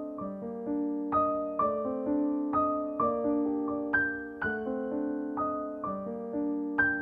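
Background piano music: a gentle, even melody with notes and chords struck about twice a second.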